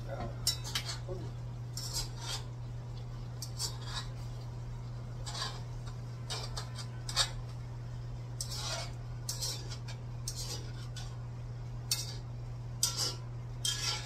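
Metal spoon scraping and clinking against a frying pan as food is stirred: a dozen or so short, irregular strokes. A steady low hum runs underneath.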